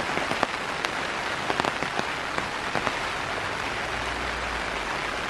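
Steady rain falling, an even hiss with many sharp drops striking close by.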